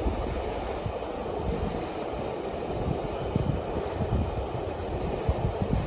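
Low, steady rushing rumble of a frozen river's water running under the ice, with uneven low surges.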